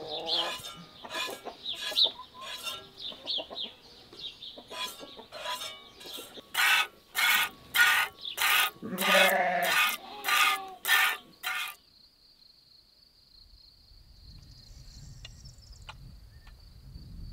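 Hand-milking a sheep into an aluminium pot: squirts of milk hitting the metal and the milk already in it, in a quick rhythm of about two a second that grows louder and then stops suddenly. After that comes a quiet stretch with a steady high insect buzz and a low wind rumble.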